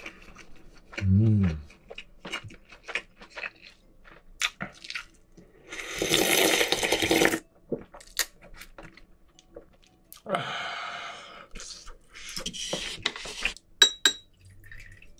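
Close-miked eating sounds: wet clicking chewing of raw squid and octopus, then a loud slurp of broth from a cup-noodle cup about six seconds in. Near the end, soju is poured from a glass bottle into a shot glass, with a short glassy ring.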